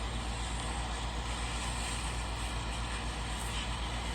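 Steady low hum with a faint hiss: constant room background noise with no distinct event.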